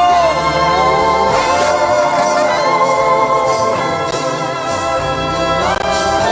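Slow gospel worship music in a wordless instrumental passage: sustained organ-like keyboard chords held under a few slow gliding melody notes.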